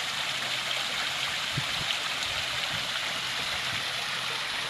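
Water rushing steadily, a continuous splashing hiss without a break.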